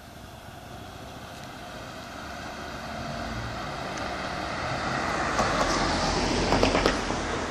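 A car driving along the road towards the listener and past, getting steadily louder and loudest near the end.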